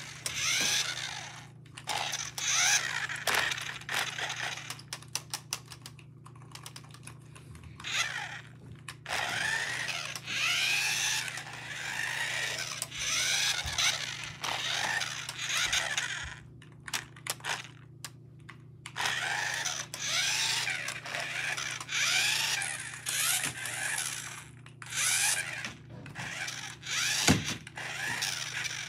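Toy RC car's small electric motor and plastic gears whirring in repeated bursts, rising and falling in pitch as it drives back and forth across a wooden floor. There is a sharp knock near the end.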